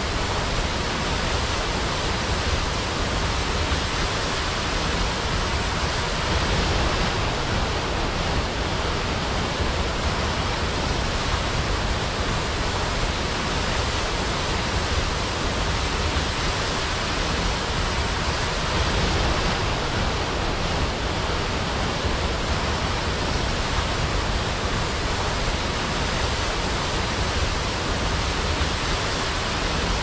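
Waterfall, water falling and rushing steadily and evenly.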